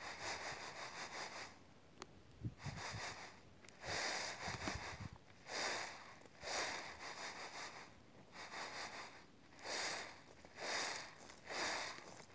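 Castor beans being winnowed in a round tray: a swishing rattle with each toss, about once a second.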